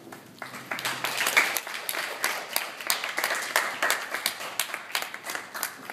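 A small group clapping, applause that starts about half a second in and slowly thins out near the end.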